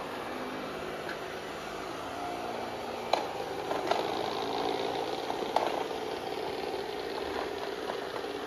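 Amarey robot vacuum running steadily, its motor and brushes making a continuous hum, with a few sharp clicks about three, four and five and a half seconds in.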